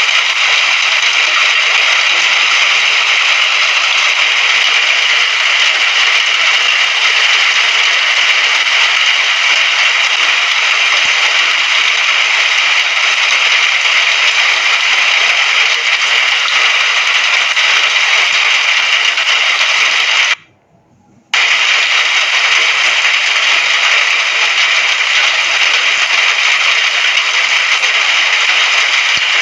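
Steady rain: a dense, even hiss of falling drops. It drops out abruptly for about a second about two-thirds of the way through, then resumes just as before.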